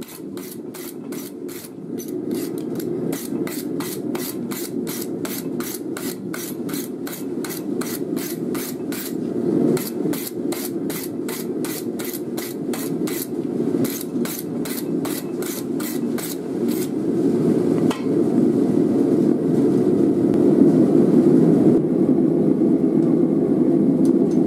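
Steel wire brush scrubbed rapidly back and forth over a hot file-steel blade on the anvil, about three scraping strokes a second, cleaning off forge scale; the brushing stops about two-thirds of the way through. Beneath it the forge runs with a steady low rushing noise that grows louder near the end.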